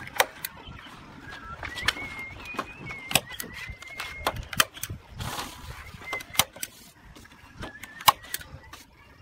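Sharp knocks and clinks from hand work with a mason's trowel and thin steel rods, spaced irregularly about once a second, the loudest near the end. Behind them a bird whistles a thin, wavering note for a few seconds at a time.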